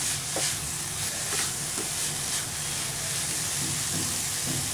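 Grated beetroot sizzling in ghee in a steel pan with a steady hiss, a spatula stirring and scraping through it a few times.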